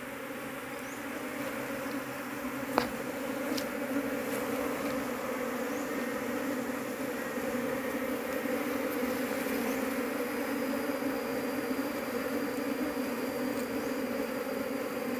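Asian honey bee (Apis cerana) colony buzzing in a steady, dense hum, stirred up by a hand reaching into the nest. The hum grows a little louder over the first few seconds, and there is one sharp click about three seconds in.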